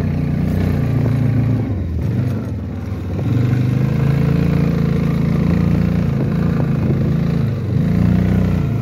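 Motorcycle engine running under throttle while riding. It eases off about two seconds in, picks back up and holds steady, then dips briefly near the end before pulling again.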